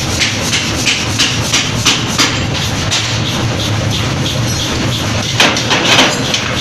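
Forge shop power press running with a steady low hum, under irregular sharp metallic clanks of tools and steel on the die during hot forging, with a louder burst of clanking near the end.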